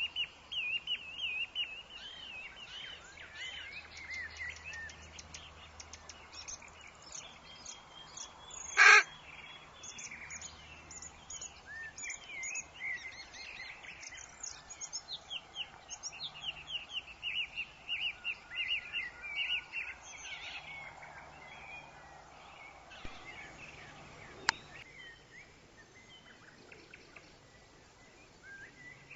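Woodland birds chirping and singing in quick repeated notes over a soft, even wind-and-leaf hiss, the birdsong thinning out in the last third. One short, loud burst about nine seconds in is the loudest sound, and a sharp click comes later.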